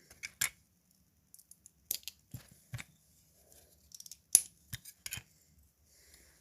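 Plastic Lego bricks clicking as they are handled and pressed together: a string of sharp, irregular clicks, the loudest about four and a half seconds in.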